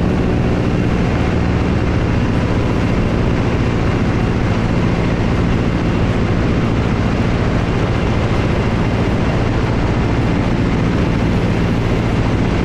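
Biplane's radial engine running steadily in flight, with a constant rush of air over the wing.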